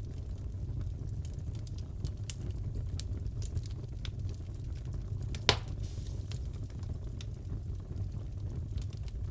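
Crackling wood fire in a fireplace: a steady low rumble with frequent small crackles and one louder pop about five and a half seconds in.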